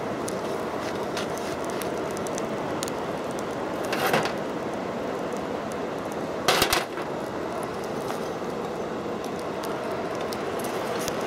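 Steady rush of the squirrel-cage blower feeding air into a coal forge fire, with small crackles from the burning coal. Two louder short clanks and scrapes of a steel rod working the coals in the cast-iron forge, about four seconds and six and a half seconds in.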